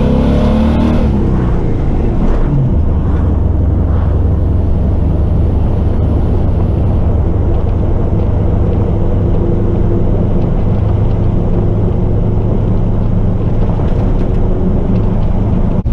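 Chevy 4x4 truck with a 6.0 L LY6 V8 swap and SM465 four-speed manual driving, its engine and drivetrain making a loud steady low drone. Pitch drops in the first couple of seconds, and a faint steady whine sits over the drone in the second half. The transmission has a damaged third gear.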